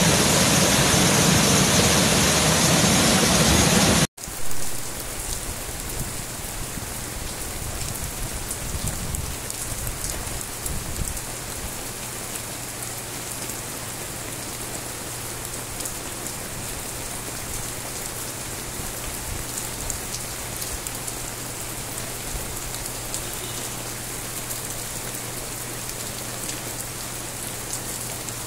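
A muddy river in flood, rushing loudly. About four seconds in it cuts to a steady, quieter rain, with a steady low hum beneath it that fits the electrical substation in view.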